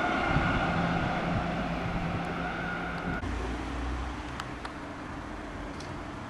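Fire engine on an emergency run: engine and road noise, with a steady high-pitched tone fading out in the first second. About three seconds in, the sound changes abruptly to quieter, even road noise.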